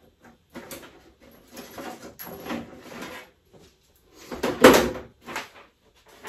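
Faucet parts being handled: braided stainless steel supply hoses rustling and clinking in the hands, in short irregular bursts, with one louder knock about four and a half seconds in.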